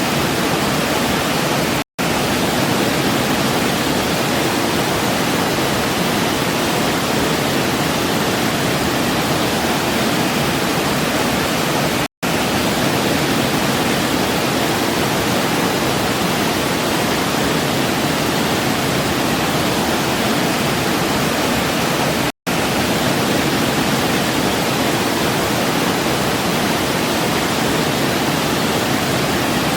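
Waterfall rushing steadily, an even wash of water noise, broken three times by a brief silent gap about ten seconds apart.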